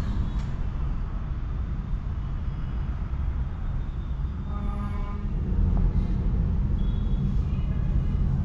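Busy city street traffic: a steady rumble of engines from motorbikes, cars and auto-rickshaws, with a vehicle horn honking about halfway through and another shorter honk near the end.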